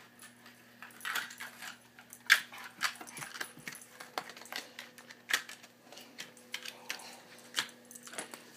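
A Greater Swiss Mountain Dog puppy playing roughly at close range, giving irregular sharp clicks and snaps, the loudest a little over two seconds in and another at about five seconds.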